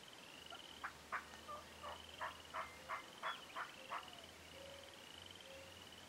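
Wild Merriam's turkey calling: a run of about nine sharp notes, roughly three a second, lasting about three seconds. Behind it, frogs give a short rising trill over and over.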